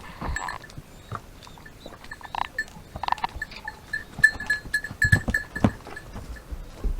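Goats bleating briefly a few times, among scattered clicks and knocks.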